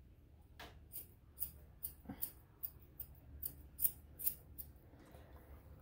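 Grooming scissors snipping through a West Highland terrier's thick facial hair: about a dozen crisp snips at roughly three a second, stopping a little after the middle.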